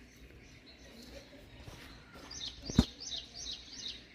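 A bird chirping a quick run of about five short high notes, with a single sharp click among them.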